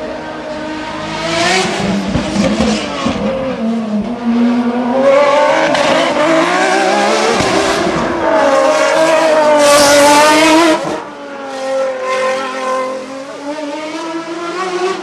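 Hillclimb race car engine at high revs, its pitch rising and dropping again and again with gear changes and lifts. It is loudest as the car passes close, then falls away sharply about eleven seconds in.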